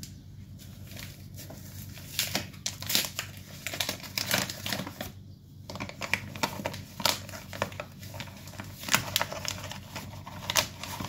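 Paper bag of all-purpose flour crinkling and crackling as it is handled and tipped to pour the flour out, in irregular bursts of rustle.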